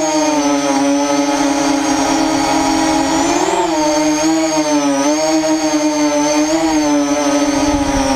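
ZMR 250 FPV quadcopter in flight, its four Tiger Motor 2206 2000kv brushless motors spinning 6x4.5 HQ props: a loud, steady buzzing whine. Its pitch swells briefly about three and a half seconds in and again near six and a half seconds as the throttle changes.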